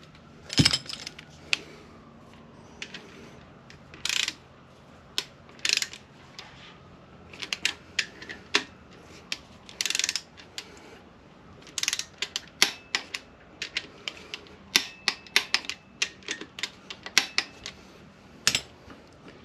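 Ratchet and torque wrench clicking and clacking on the bolts of a Honda K24 short block as they are loosened and retorqued. Sharp, irregular clicks, sparse at first and then in quick runs from about halfway on.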